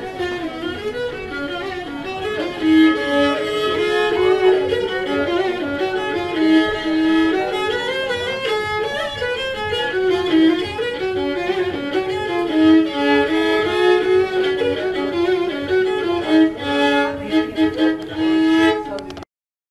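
Cretan lyra, a small pear-shaped bowed string instrument held upright on the knee, played with a bow in a melody of quickly changing notes. The playing cuts off suddenly near the end.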